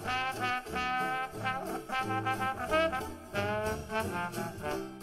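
Background music: a lively brass-led tune, a melody of quick pitched notes over a bass line.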